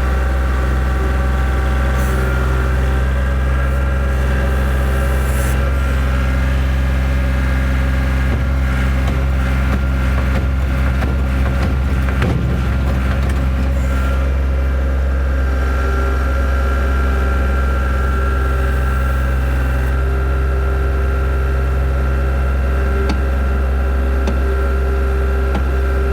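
Tracked skid steer's engine running steadily under load as it works through deep mud, with knocking and scraping from the tracks and undercarriage around the middle; the machine's belly is dragging bottom in the ruts.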